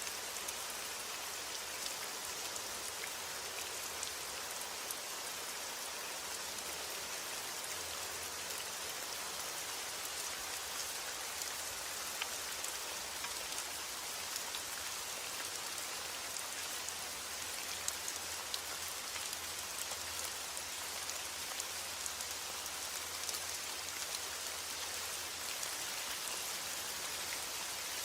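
Heavy rain falling steadily: a dense, even hiss with many small, sharp drop ticks scattered through it.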